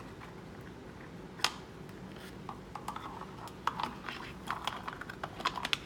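Blue-and-yellow macaw biting and chewing at an object with her beak: one sharp click about a second and a half in, then a long run of small irregular clicks and crunches.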